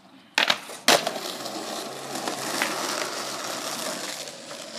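Skateboard: two sharp clacks of the board hitting the ground about half a second and a second in, then a steady rumble of its wheels rolling over rough asphalt.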